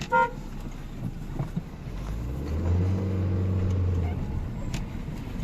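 A short beep near the start, then a motor vehicle's low engine hum swells up and fades as it goes by in the middle.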